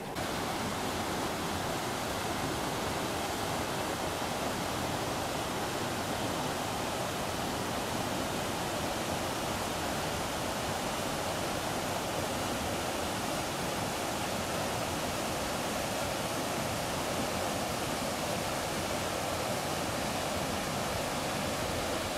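Mountain river water rushing steadily over rocks, an even, unbroken sound of flowing water.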